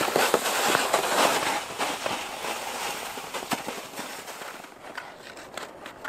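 Loaded plastic pulka sled dragged over crusted snow: a dense crackling, crunching scrape that fades as the sled moves away.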